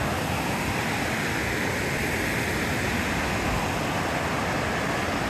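Steady rush of a mountain river tumbling over rocks and a small cascade.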